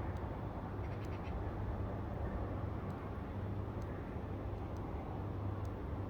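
Steady outdoor ambience: an even noise with a constant low hum, and a few faint high ticks about a second in.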